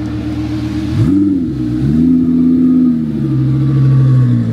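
Lamborghini Gallardo's V10 engine driving slowly past: a sharp throttle blip about a second in, then a second rev that rises, holds, and eases back to a steady lower drone near the end.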